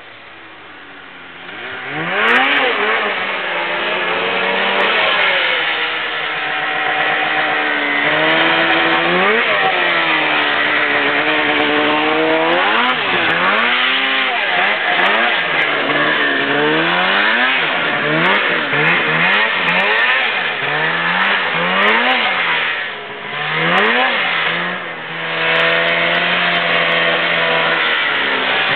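Snowmobile engine revving up and easing off again and again as it rides through deep powder, its pitch swinging up and down every second or two. It is faint at first and comes in loud about two seconds in, with two brief drops in level near the end.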